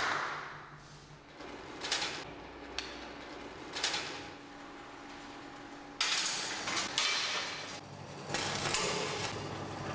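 A heavy metal ball rolling along steel rods in a chain-reaction machine, with several metal knocks and clanks a second or two apart as it drops onto and strikes the machine's parts. A faint steady hum lies under the first half.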